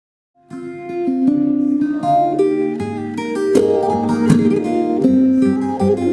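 Music on a plucked string instrument, picked and strummed, starting suddenly about half a second in.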